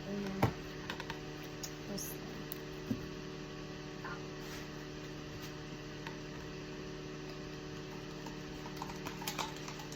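Steady electrical hum, with a few faint clicks and taps scattered through it and several close together near the end.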